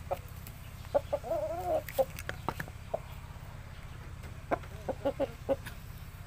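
Chickens clucking in short calls, with one longer wavering call about a second in and a quick run of clucks near the end.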